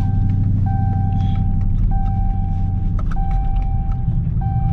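A car's warning chime, one steady tone about a second long repeating about every second and a quarter, over the low rumble of the engine heard from inside the cabin. It is typical of a seatbelt reminder.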